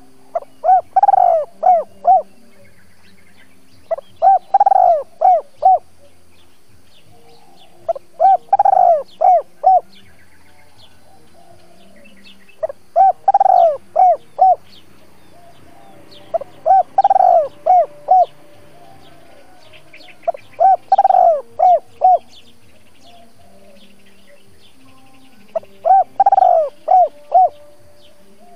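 Spotted dove cooing its calling song, seven phrases about every four seconds. Each phrase is a short note, a long loud coo, then three or four quick short coos.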